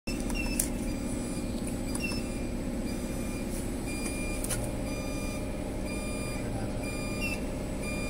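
Steady hum of a CNC wheel-repair lathe running, with a repeating electronic beep about once a second and a couple of sharp clicks.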